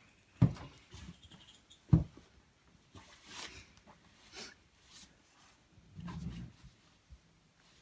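Two dull thumps, about half a second and two seconds in, then soft rustling of bedding and clothing and a brief low scuffle near the end, as a person's wrists are tied on a bed.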